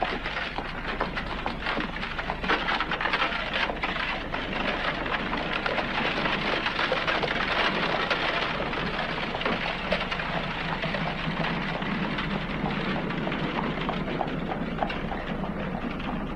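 Horse-drawn cart rolling along a gravel road: a dense, continuous rattle and crackle of its wheels, with a steady low hum underneath.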